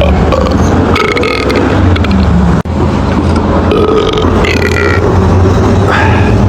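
A person burping: loud, deep, drawn-out belches in two long stretches, split by a brief break about two and a half seconds in, ending abruptly near the end.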